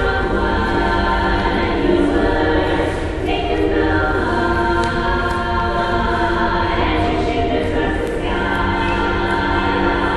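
Choir singing in several parts, holding sustained chords that change about three seconds in and again near eight seconds.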